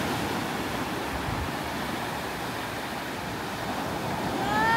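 Small waves washing up over a sandy beach: a steady surf hiss.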